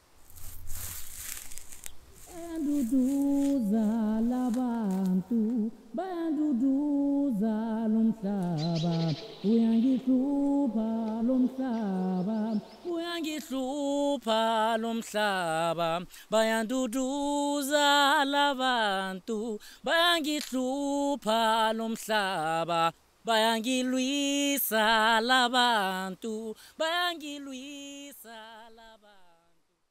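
Wordless solo singing: one voice gliding between long held notes, with a wavering vibrato on the notes in the second half, fading away near the end.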